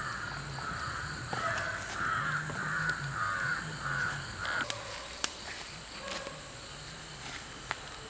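Crows cawing over and over in a quick run of calls that stops about four and a half seconds in, followed by a few sharp clicks.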